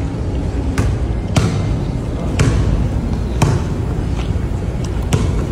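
A basketball being bounced on a hard, smooth store floor: sharp single bounces roughly once a second, with two quicker ones near the end, over a steady background hum.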